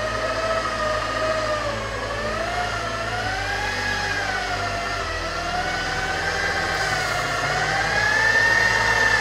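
Electric rotary polisher running with a foam pad on car paint: a motor whine whose pitch dips and rises as the pad is worked across the panel, climbing higher near the end.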